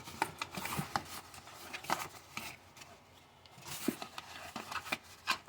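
Trading-card packaging being handled and worked open by hand: scattered light clicks, rustles and crinkles of cardboard and wrapper.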